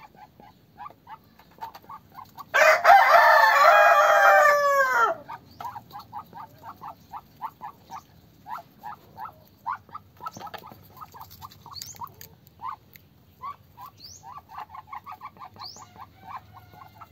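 A rooster crows once, loudly, from about two and a half seconds in for about two and a half seconds, the call falling in pitch at its end. Around it, soft short chirping calls repeat a few times a second, with a few brief high rising bird chirps near the end.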